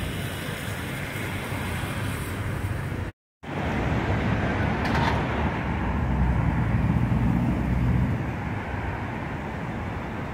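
City street traffic: a steady low rumble of passing cars and buses. About three seconds in the sound cuts out for a moment, and from about four to eight seconds a louder swell comes as a vehicle passes close.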